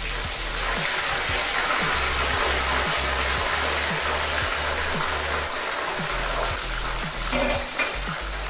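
Marinated chicken pieces sizzling in hot oil in a shallow frying pan, a steady hiss, with background music underneath.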